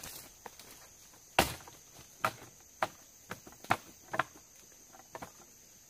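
Sharp knocks of bamboo being struck or set down while a bamboo floor is built, irregular, about seven in all, the loudest about a second and a half in. A steady high insect drone runs underneath.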